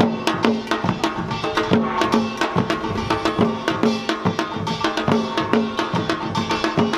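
Samdo samulnori played seated (anjeunban): janggu hourglass drums beaten in fast, dense rhythm, with a small kkwaenggwari gong and a jing gong ringing along.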